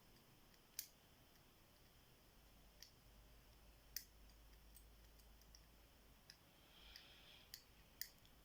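Number wheels of a combination padlock being turned under light tension on the shackle, giving faint, sharp detent clicks at irregular intervals, about ten in all. The wheels are being turned to find the shackle's slight give and click at each correct digit.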